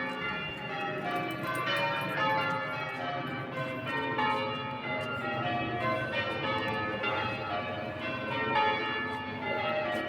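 Several church bells rung in practice, struck one after another in quick succession, each ringing on so the strokes overlap.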